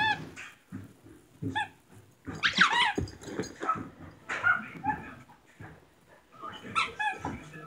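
A dog whining in short, excited, rising and falling cries, with a few short barks, while she goes after her squeaky toy.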